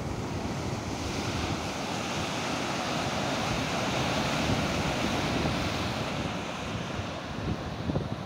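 Ocean surf washing and breaking against rocks, the hiss of the whitewater swelling in the middle. Wind buffets the microphone with low thumps.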